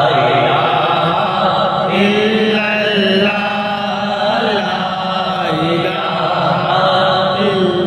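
Devotional kalam (naat-style poem) being chanted: a voice carries a slow, bending melody with long held notes over a steady drone.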